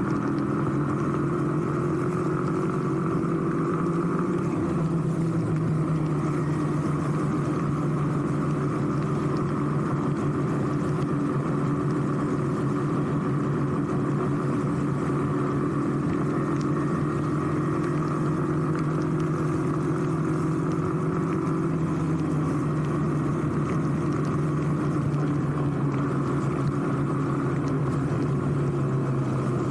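Motorcycle engine running steadily while riding on a wet road, with an even hiss over it; the engine note rises a little about four seconds in and eases slightly past the twenty-second mark.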